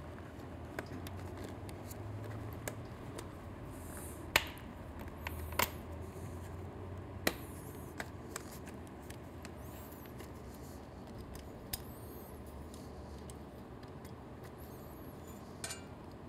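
Scattered sharp clicks and light rubbing as hands pull a motorcycle's side stand switch wire free of its plastic clips and guides on the frame, over a faint low hum.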